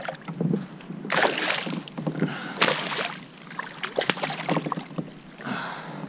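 A hooked smallmouth bass splashing and thrashing at the surface beside a kayak as it is landed, in three main short bursts about a second and a half apart.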